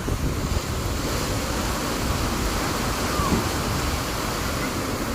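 Sea waves washing onto a beach: a steady rushing noise of surf.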